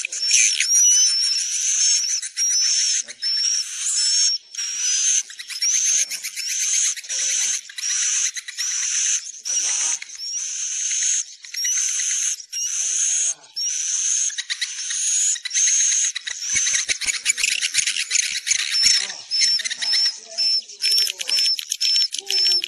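A flock of edible-nest swiftlets twittering: dense, rapid buzzy chirping with a sharp rising note repeated about once a second. This is the lure call played at swiftlet nesting houses to bring birds in to roost.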